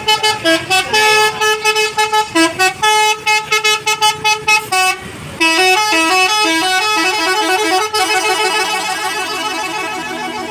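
Bus's Basuri telolet horn, a multi-trumpet musical air horn, playing a fast tune of short stepped notes. It breaks off briefly about five seconds in, then plays a quicker run of notes that thickens into overlapping tones and slowly fades near the end.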